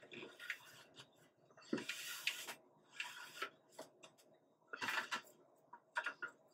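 Fingers pressing and rubbing a self-adhesive LED strip down onto an old fluorescent fixture's reflector: about four soft rubbing scrapes, each under a second, with scattered light clicks and taps.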